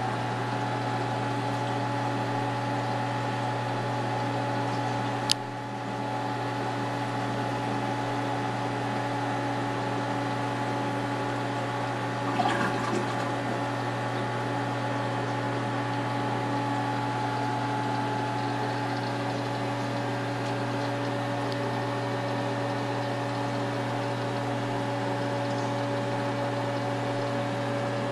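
Steady hum of a reef aquarium's pumps with circulating water running under it. A sharp click comes about five seconds in and a short knock near the middle.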